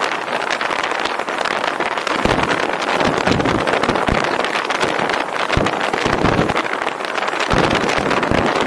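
Steady rush of wind and road noise from a car driving at speed, with irregular low wind gusts buffeting the microphone.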